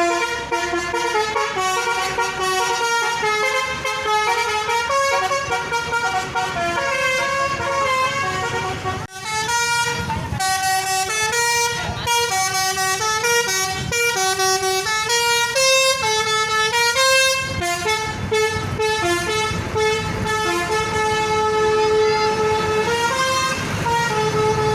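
Bus 'telolet' multi-tone air horn playing a long melody, stepping from note to note, over the rumble of traffic. The melody breaks off abruptly about nine seconds in and starts again.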